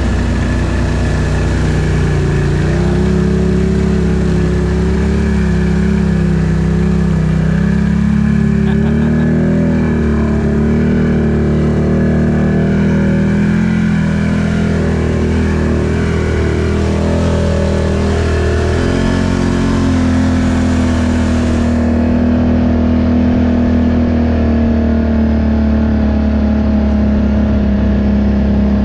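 ATV engine running under way, its pitch wavering gently with the throttle and stepping up about two-thirds of the way through, over a steady low rumble.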